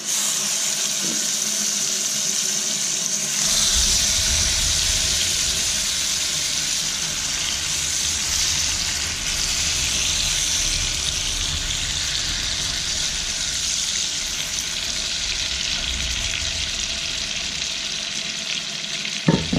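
Chicken breast fillets searing in very hot butter and oil in a frying pan: a steady, loud sizzle that gets stronger about three and a half seconds in as more fillets are laid in.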